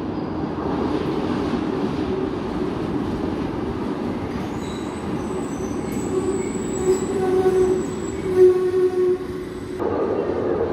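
Glasgow Subway train rumbling in from the tunnel and running into the platform, with a high metallic squeal from its wheels from about halfway through that gets loudest near the end. The sound then cuts abruptly to the steady rumble of another subway train approaching through the tunnel.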